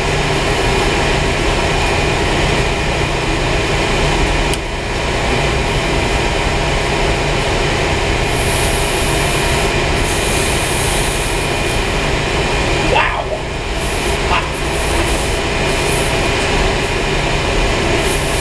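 Steady mechanical drone of boiler-room equipment running: a constant rumble with a few steady hum tones. There is a short squeak about 13 seconds in.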